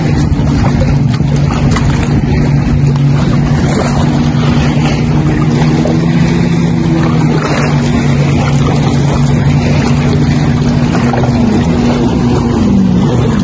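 A motorboat engine running steadily at a constant pitch, heard with a steady rush of wind and water. A brief pitch glide comes near the end.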